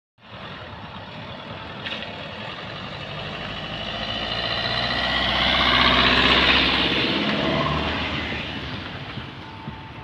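A car towing a small caravan drives past. Its sound grows louder to a peak about six seconds in, then fades as it moves away.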